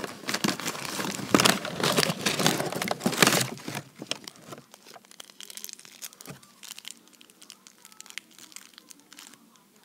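Plastic candy wrapper of a Jolly Rancher cherry lollipop crinkling as it is handled close to the microphone. It is loud and dense for the first four seconds or so, then thins to scattered faint crackles.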